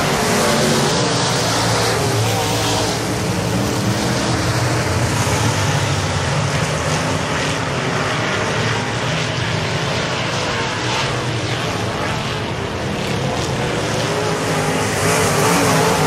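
A field of dirt-track modified race cars running at speed, their engines loud and continuous, swelling as cars pass close at the start and again near the end.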